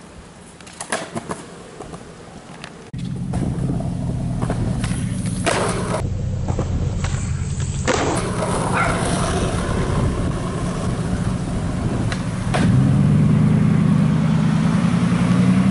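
Skateboard wheels rolling on asphalt in a steady low rumble that starts about three seconds in and grows louder near the end, with sharp clacks of the board scattered through.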